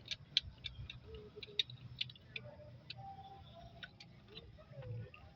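Faint, irregular light clicks and ticks, a few each second, over a low hum with faint wavering tones in the background.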